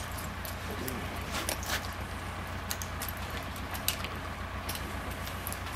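Scattered light clicks and clinks of a draft horse's bridle hardware and chain being handled as the bridle is fitted, over a steady low hum.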